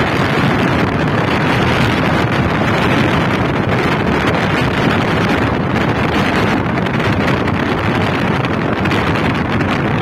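Steady wind noise buffeting the microphone over the running of a moving car and its tyres on the road.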